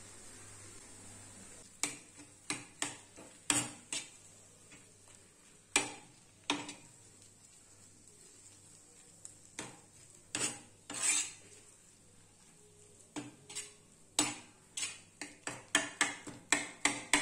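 Metal spatula clinking and scraping against a flat iron griddle (tawa) as a mixture of mashed vegetables and spices is stirred and chopped. It is a run of sharp clinks at irregular intervals, starting about two seconds in and coming faster near the end.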